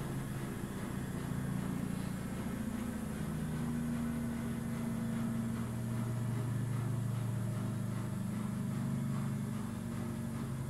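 Engine running steadily, a low hum whose pitch shifts slightly up and down every few seconds.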